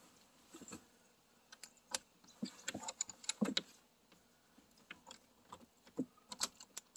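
Small metal clicks and clinks of a bimini top's frame fitting being handled and set into its deck hinge mount on the boat's gunwale. They come as scattered sharp clicks, bunched about two to three and a half seconds in and again near the end.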